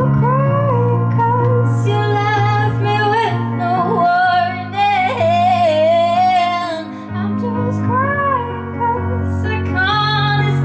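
A young woman singing into a microphone, holding long notes that slide up and down in pitch, over an instrumental accompaniment with sustained low bass notes.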